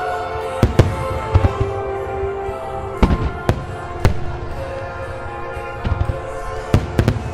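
Aerial firework shells bursting in a starmine barrage: about ten sharp bangs at uneven intervals, some in quick pairs. Under them runs continuous orchestral music.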